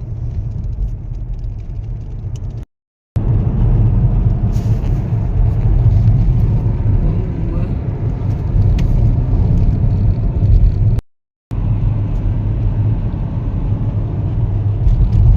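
Car road noise heard from inside the cabin while driving: a steady low rumble of engine and tyres, broken twice by a sudden moment of silence, about three seconds in and again about eleven seconds in.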